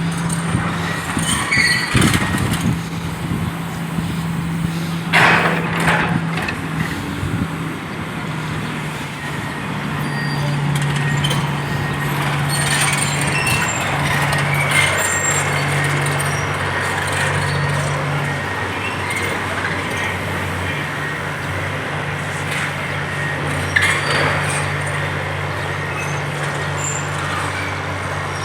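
Heavy diesel engine running steadily, its note stepping up and down, with a sharp knock about two seconds in and short crunching bursts a few seconds in and near the end.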